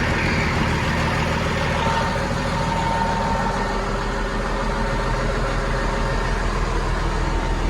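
Caterpillar D6R XL bulldozer's diesel engine idling steadily.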